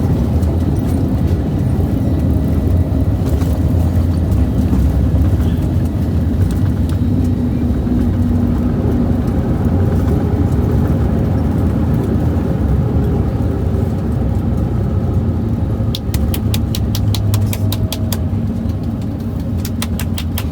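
Steady low cabin rumble of an Airbus A321neo during landing, heard from inside the cabin. Near the end, a run of rapid, evenly spaced clicks comes in.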